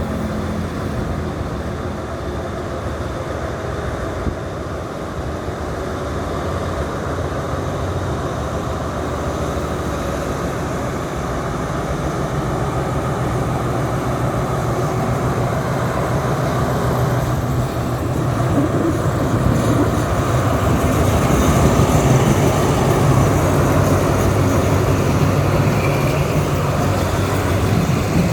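Alsthom diesel-electric locomotive's engine working hard under throttle as it pulls a train away from a station, growing steadily louder.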